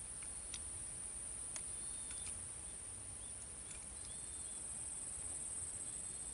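Insects keeping up a steady high-pitched trill, with a few faint short chirps over low background noise.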